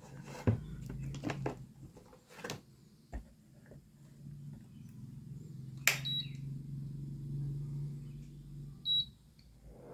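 Induction cooker's newly fitted cooling fan running with a steady low hum, after a few handling clicks. Two short high beeps from the cooker's touch panel sound about halfway through and near the end.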